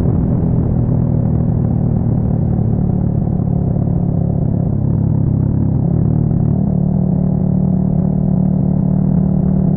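Yamaha XSR 155's single-cylinder engine running through an aftermarket full exhaust while riding at steady throttle, its note changing about six seconds in.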